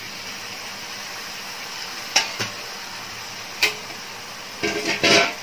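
Onion-tomato masala with freshly added raw chicken sizzling steadily in oil in a pressure cooker. A few sharp clinks of a spoon against the metal pot come about two and three and a half seconds in, and there is a louder burst of clatter near the end as stirring begins.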